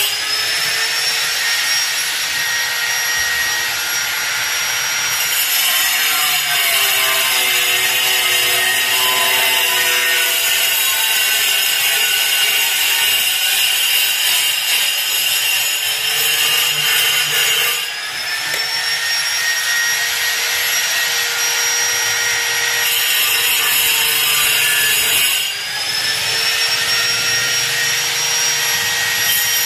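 Angle grinder running, a high whine with a dense grinding noise under it; twice the level dips briefly and the whine climbs back up to speed.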